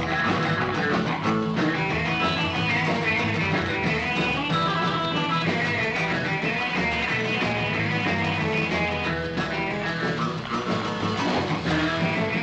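1960s rock band with electric guitars playing an uptempo dance number for dancers.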